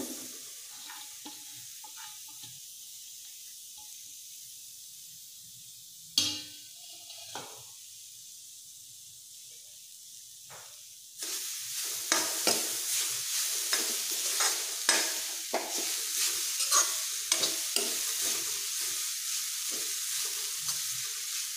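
Grated coconut dry-roasting in a non-stick kadai: a soft steady hiss with a sharp metal knock about six seconds in, then from about eleven seconds a steel spoon scraping and stirring the coconut around the pan in quick repeated strokes, with a light sizzle.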